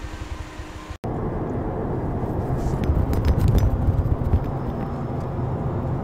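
Inside a moving car: steady low engine and road rumble, with a few light clicks and knocks. The sound cuts out for an instant about a second in.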